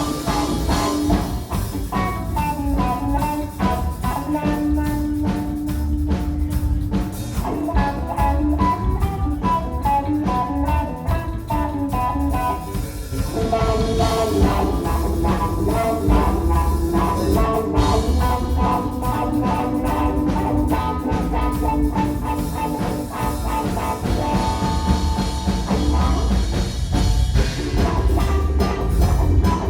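Live blues-rock trio playing an instrumental passage: electric guitar lead lines over bass guitar and a drum kit keeping a steady beat.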